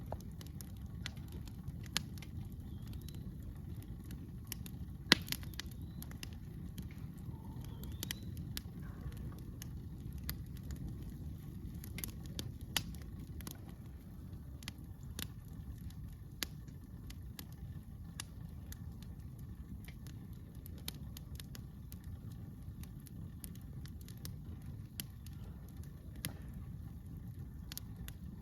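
Campfire crackling, with irregular sharp pops and one louder snap about five seconds in, over a steady low rumble.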